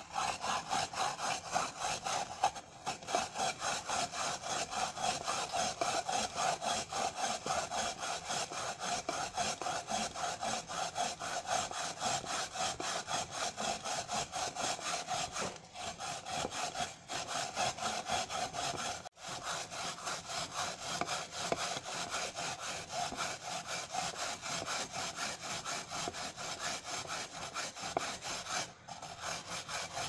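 Apple being grated by hand on a plastic grater lid over a glass container: continuous rasping, scraping strokes in a quick, even back-and-forth rhythm, broken by a few short pauses.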